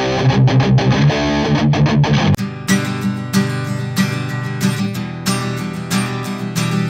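Electric guitar played through a guitar amp, then about two seconds in a switch to an acoustic guitar strummed in a steady rhythm. Both are recorded through a Blue Raspberry USB microphone as a music test.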